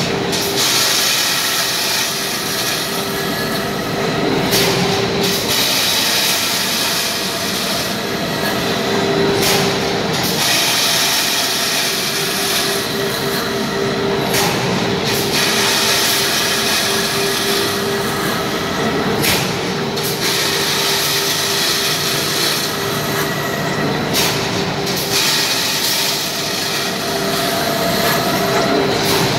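Bright bar machine running: steady mechanical noise with a hum, and a high hiss that drops out briefly about every five seconds.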